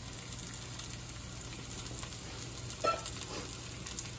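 Potato patties frying in grapeseed oil in a hot sauté pan, a steady sizzle with fine crackle. About three seconds in, a short clink of a utensil rings out, followed by a fainter knock.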